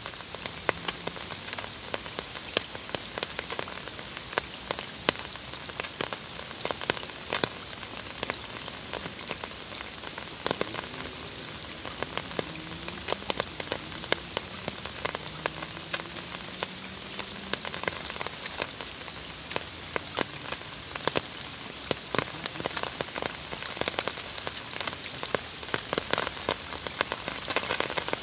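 Soft rain falling on the still surface of a pond: a steady hiss with many separate drop splashes ticking through it.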